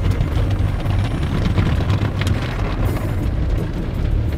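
Automatic car wash heard from inside the car's cabin: water spray and cloth brushes working over the car, with a steady low rumble and a single sharp knock about two seconds in.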